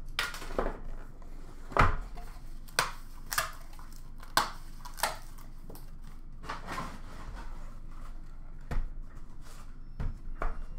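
Cardboard hobby box being opened and handled: sliding and scraping of cardboard with about a dozen sharp taps and knocks as the lid comes off and the small boxed packs are set down and lifted out.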